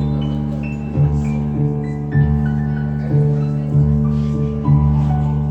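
Piano playing a song's instrumental intro: low chords re-struck about once a second under a slowly descending line of high notes.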